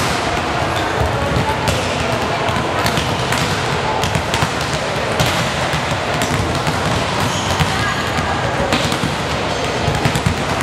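Several volleyballs being struck and bouncing off the court floor during a team warm-up: many sharp, irregular smacks, one after another, in a large sports hall, over a steady background of voices.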